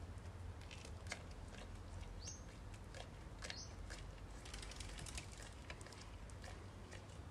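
Goat chewing mango: faint, wet clicks and smacks of its mouth working. Two short, high, rising chirps come about two and three and a half seconds in.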